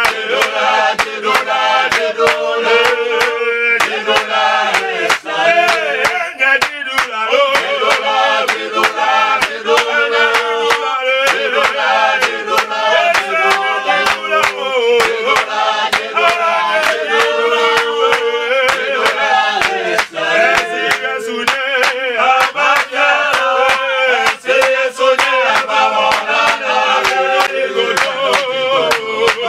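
Male voices singing a worship song together, with quick, regular sharp beats of percussion or clapping throughout.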